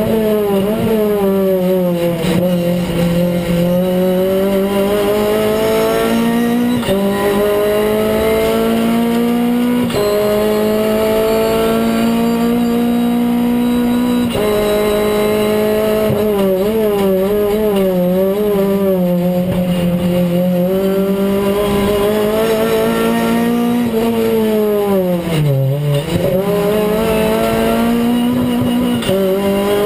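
Renault Clio Cup race car's four-cylinder engine heard from inside the cockpit at racing speed. Its pitch climbs and falls with sudden steps as gears change, and drops lowest about 25 seconds in before climbing again.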